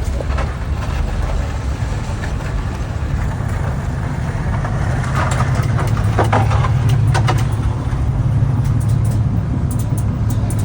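Truck engine running with a steady low exhaust rumble that grows a little louder about halfway through, with a few short sharp clicks at about the same time.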